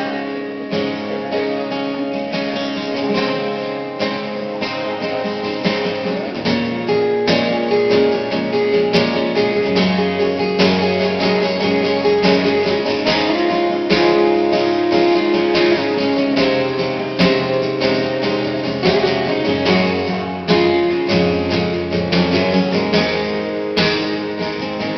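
Two acoustic guitars playing the instrumental introduction of a song, strummed in a steady rhythm.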